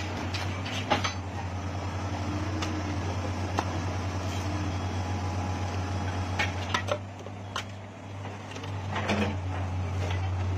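Komatsu PC200 excavator's diesel engine running with a steady low drone as it powers a mast-mounted drilling rig, with a few sharp metallic clanks scattered through. The drone eases briefly about seven seconds in.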